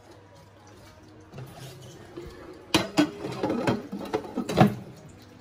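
Dishes and cutlery clinking: a handful of sharp clinks and knocks in the second half, the loudest near the end.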